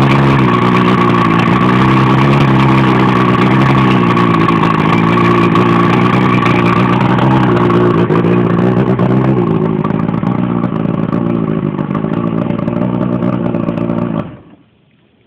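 1997 Johnson 115 V4 two-stroke outboard motor running steadily, its pitch wavering slightly up and down; the sound cuts off suddenly near the end.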